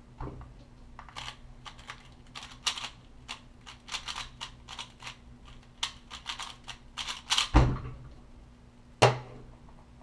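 3x3 Rubik's speedcube turned rapidly in a timed speedsolve: a fast, irregular run of plastic clicks and clacks for about six seconds. It ends in a heavy thump as the cube is set down and hands slap the Stackmat timer pads to stop it, and another sharp knock comes about a second and a half later.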